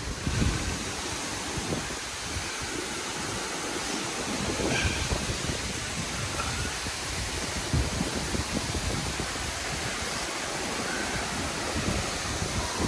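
Steady rushing of a waterfall's falling water, with scattered low thumps throughout.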